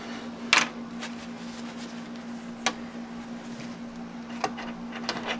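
A few sharp metallic clicks and taps as a dead center is fitted and handled in the Morse tapers of a South Bend 9-inch metal lathe, the first one loudest about half a second in. A steady low hum runs underneath.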